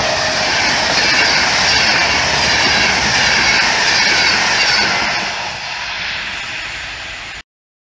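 Electric-hauled passenger train passing close by at speed: a steady rush of wheels on rails and coaches going past. It fades as the last coaches pull away and cuts off suddenly near the end.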